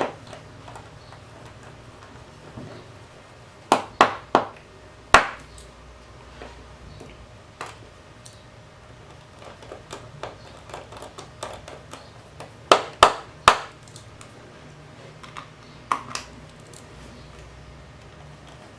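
Sharp metallic clicks and taps from handling an opened laptop hard disk and its small parts: four close together about four to five seconds in, three more around thirteen seconds, and scattered lighter ticks between.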